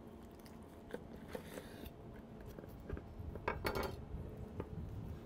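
Kitchen knife slicing through a rack of smoked beef ribs on a wooden cutting board: faint cutting sounds and a few light clicks and knocks of the knife against the board, the loudest about three and a half seconds in.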